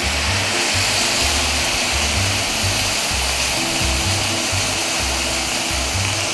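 Water poured into a hot pan of chicken legs in soy sauce, sizzling and hissing as it hits the reducing sauce, with background music.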